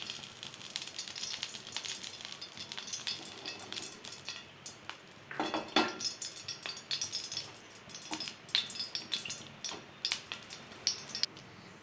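Cooking oil heating in a pan, with faint sizzling and scattered small crackles and pops. A denser run of louder clicks and knocks comes about five and a half seconds in.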